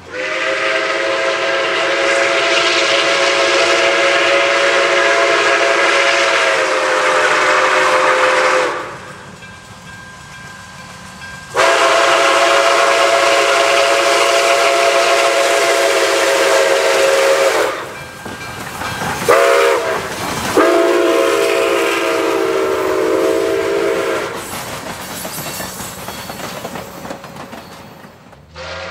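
Brass Nathan six-chime steam whistle on a steam locomotive blowing the grade-crossing signal: two long blasts, a short one, then a final long one. The chord swoops in pitch as it opens for the last two. The rumble and hiss of the moving train fill the gaps and carry on as the whistle stops.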